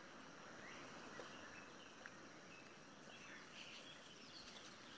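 Near silence: faint outdoor nature ambience, a low hiss with a few faint chirps in the second half.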